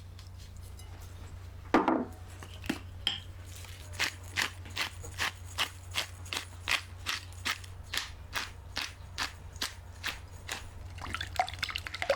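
A series of evenly spaced light clicking knocks, about two or three a second, after one louder knock about two seconds in, over a steady low hum.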